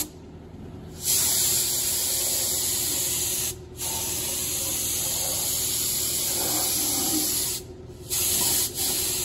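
Air-powered touch-up spray gun spraying rust paint: three bursts of hiss, the longest about four seconds, with short pauses where the trigger is let go.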